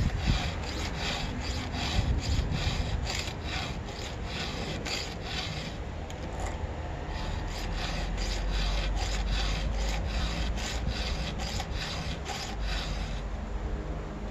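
Round chainsaw file rasping across the cutters of a ripping chain in steady hand strokes, about two a second, with a short pause midway, stopping near the end.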